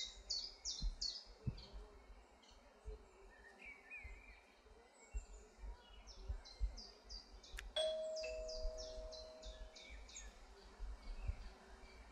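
Small birds chirping in quick repeated runs, then about eight seconds in a two-tone ding-dong doorbell chime sounds once: a click, then a higher note followed by a lower note, both ringing on for about two seconds.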